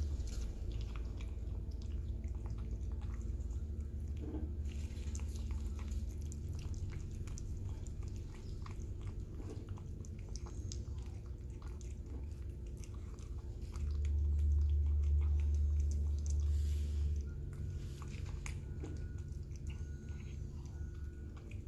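A cat chewing and licking wet canned cat food, with many small, irregular wet clicks. A steady low hum runs underneath and grows louder for a few seconds about two-thirds of the way through.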